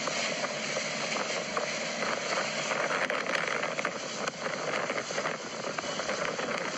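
Steady rushing noise of a motorboat under way, its engine running under the rush of wind and water.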